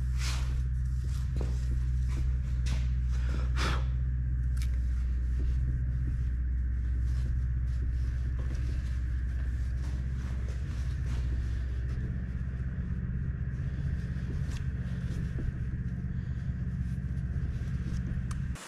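A steady low machine hum throughout, with intermittent scuffs and rustles from a cloth rag being rubbed around the inside of an aluminum engine block.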